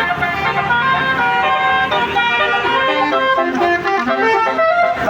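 Indonesian bus 'telolet basuri' musical air horn playing a tune: a string of steady horn notes that step up and down in pitch every fraction of a second.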